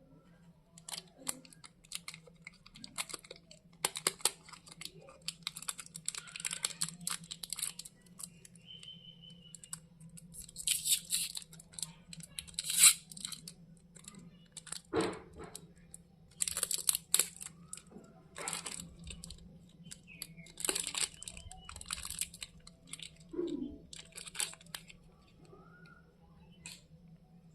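Chocolate wrappers being torn open and crinkled by hand, in repeated bursts of crackling and rustling with sharp clicks, over a steady low hum.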